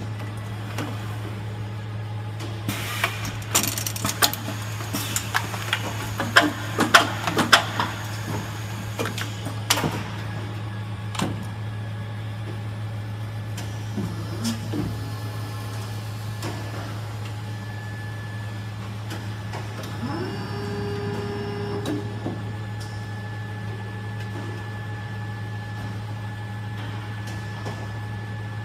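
Plastic injection moulding machine running with a steady low hum. A run of sharp metallic clicks and clatter comes in the first ten seconds. A brief rising whine, about two seconds long, comes about twenty seconds in.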